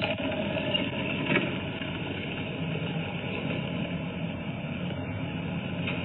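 Golf cart running steadily as it drives off along the street, picked up by a doorbell camera's microphone, with a constant hiss over a faint low hum.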